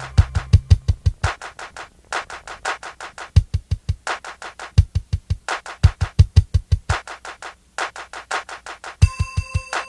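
Background music with a fast, steady beat and low drum hits in short runs.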